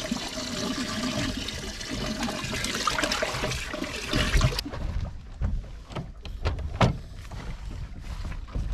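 Water trickling and splashing in a boat's livewell holding fish. About four and a half seconds in, the sound changes abruptly to a few sharp knocks and thumps, the loudest about two seconds later.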